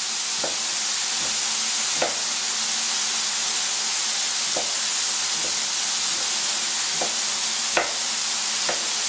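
Diced raw smoked bacon sizzling steadily in a frying pan, with a handful of sharp knife taps on a plastic cutting board as small sausages are sliced.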